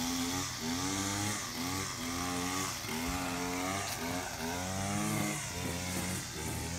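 Gas string trimmer's small engine running, its pitch rising and falling over and over as the throttle is worked.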